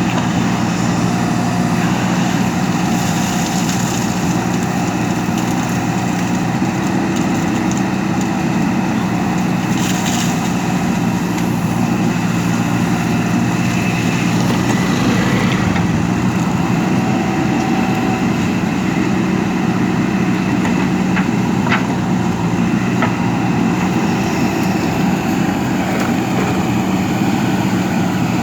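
JCB backhoe loader's diesel engine running steadily at a constant pitch, with a few faint clicks.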